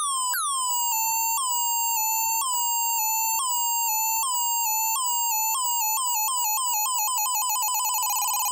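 Hand-built analog noise machine sounding a repeating electronic blip: each one a quick downward pitch drop that settles on a steady tone. The repeats start at about two a second and speed up into a fast warble near the end.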